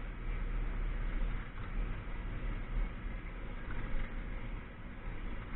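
Valmet tractor's diesel engine running steadily at moderate revs, heard from inside the cab while driving, the engine still cold.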